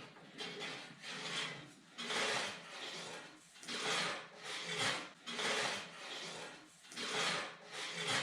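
Repeated rasping, scraping strokes, roughly one a second and slightly uneven in spacing.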